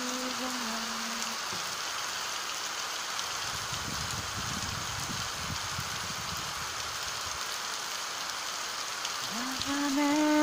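Steady rain falling on clay-tile roofs and pavement, an even hiss of drops. A voice hums a short note at the start and a louder one near the end.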